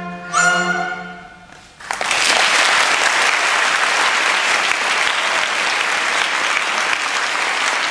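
The last note of a Chinese bamboo flute (dizi) piece with orchestral accompaniment, held and fading away. About two seconds in, audience applause breaks out and continues steadily.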